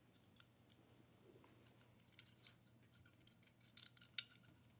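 Faint small metal clicks and ticks as an AR-15 magazine catch is turned onto the magazine release button's threaded post, with a few louder clicks near the end.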